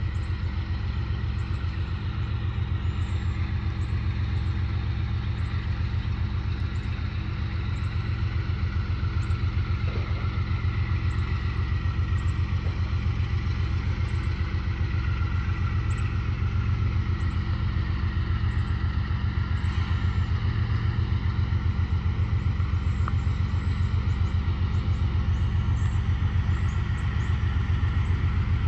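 Distant diesel locomotive engines throbbing in a steady, pulsing low rumble as a train approaches, growing slightly louder.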